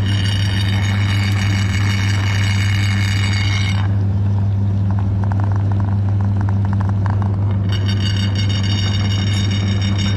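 Electric meat grinder motor running steadily with a strong, even hum. Its higher whine drops away for about four seconds in the middle, leaving faint rapid crackling, then returns.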